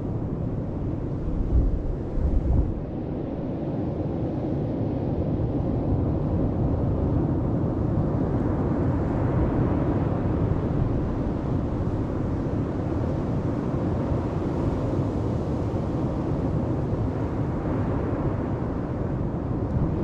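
Atlantic Ocean surf breaking and washing up the beach: a steady rush that swells and eases. Two brief low thumps of wind on the microphone come about two seconds in.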